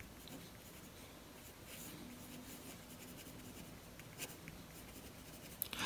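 Faint scratching of a pen writing out handwriting in short strokes.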